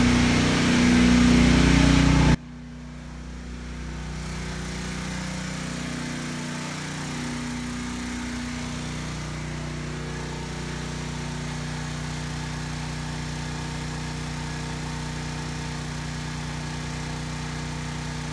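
A 3-ton central air conditioner's outdoor unit, compressor and condenser fan freshly started, running with a loud steady hum that cuts off abruptly about two seconds in. Then a Briggs & Stratton Storm Responder 6250-watt portable generator running steadily under load, carrying the air conditioner at about 61% of its capacity.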